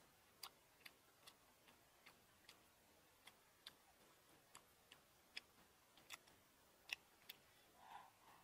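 Faint, close-up mouth sounds of someone chewing fried frog: sharp, wet clicks at a fairly even pace of about two or three a second, then a softer sound near the end as she bites into the frog leg again.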